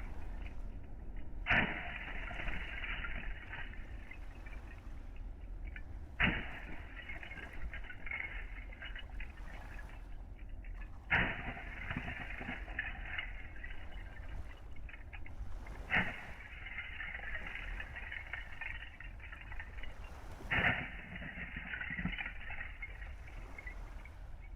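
Loose seashells crunching and clattering in repeated surges, each starting sharply and trailing off over a few seconds, about every five seconds.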